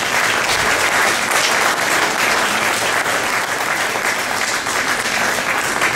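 An audience applauding, many hands clapping at a steady level throughout.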